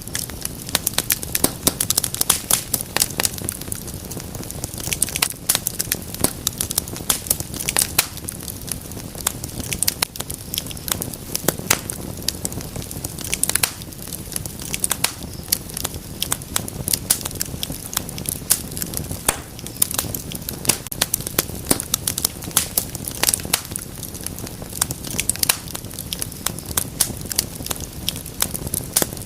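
Wood fire crackling: frequent sharp pops and snaps, irregular, over a steady low rush of burning.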